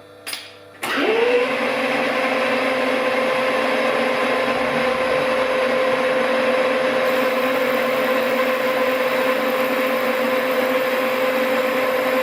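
A short knock, then a lathe's electric motor and spindle start about a second in, running up to speed within half a second with a rising whine. The lathe then runs steadily with an even hum.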